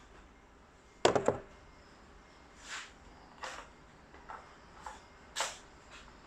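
Spring-powered airsoft gun with a PDI M140 spring firing a shot about a second in, a sharp snap with a short rattle, followed by several softer separate clicks.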